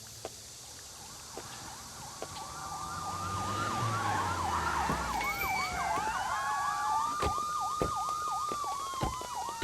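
Police car sirens approaching, growing louder from about two seconds in: a slow rising-and-falling wail together with a fast warbling yelp. A few sharp knocks come in the second half.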